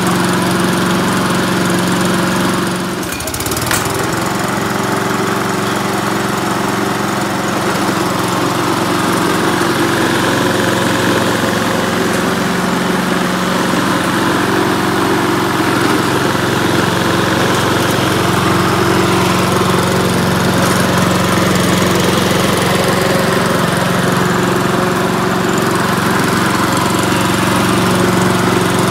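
Ryobi self-propelled lawn mower's 160 cc engine running steadily, with a brief dip in level and pitch about three seconds in before it settles back to an even run.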